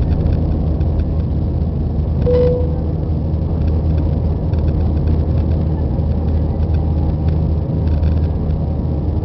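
Airbus A320 cabin noise during the climb just after takeoff: a loud, steady low rumble of the engines and airflow heard from inside the cabin. A brief tone sounds about two seconds in.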